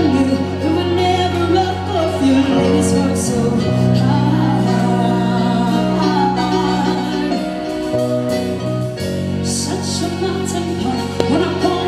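Live band music: a woman singing into a microphone over drums and held low keyboard chords, with cymbal splashes about three seconds in and again near ten seconds.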